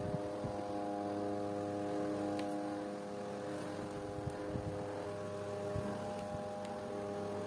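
A steady machine hum made of several even tones, with a few faint clicks.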